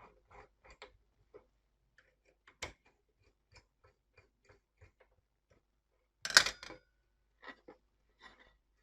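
Small scattered clicks and taps of a screwdriver working the screws of a desktop CPU cooler on its motherboard, with one louder clatter about six seconds in.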